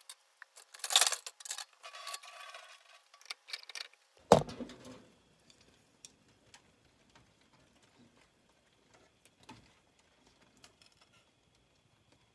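Wooden chopsticks moving plastic-wrapped chicken breast rolls about in a pot of hot water: a few seconds of sloshing and rustling, then a single loud knock about four seconds in, followed by faint scattered ticks.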